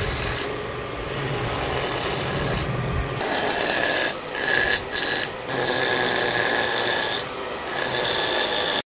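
Handheld rotary tool with a small abrasive wheel grinding wood: a steady high whine over a rasping grinding noise. The whine breaks briefly a few times around the middle as the wheel is lifted and pressed back onto the wood, and the sound cuts off suddenly at the end.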